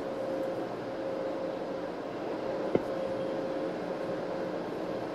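Car-wash water spray and foam hitting a car's windshield, heard from inside the cabin as a steady rushing noise over a steady hum. A single knock comes about two and a half seconds in.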